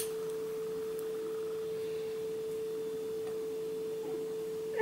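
A steady hum on one pure pitch, with a short click at the start.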